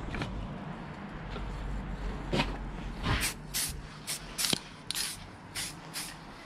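Aerosol can of Hammerite direct-to-rust metal paint spraying in a series of short hissing bursts, closer together in the second half, laying down a light speckled first coat.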